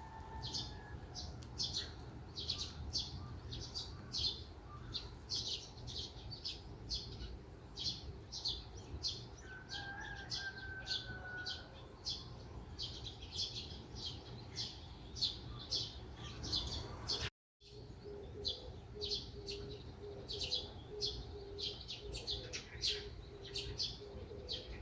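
Songbirds chirping continuously: rapid, high, short chirps, one after another. The sound drops out completely for a moment about two-thirds of the way through, then the chirping resumes.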